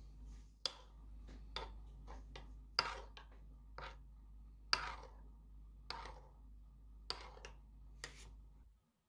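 White ceramic spoon stirring thick tomato-paste sauce in a small ceramic pot, scraping and clicking against the pot's sides in irregular strokes about once a second.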